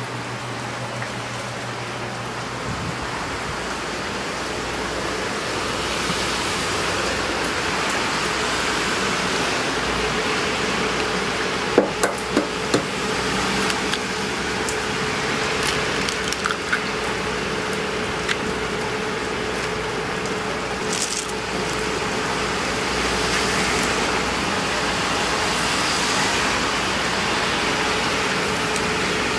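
Automatic ramen cooker heating a paper bowl of instant ramen on its induction burner: a steady hiss of water heating, with a faint steady hum and a few sharp clicks about twelve seconds in.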